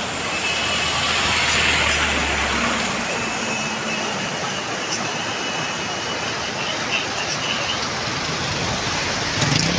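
Swollen, muddy floodwater rushing past in a steady, loud wash of noise, with a low hum under it for the first two and a half seconds.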